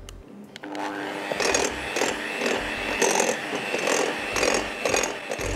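Electric hand mixer switched on about a second in, running steadily as its twin beaters churn crumbly gram-flour and ghee dough and scrape around a glass bowl.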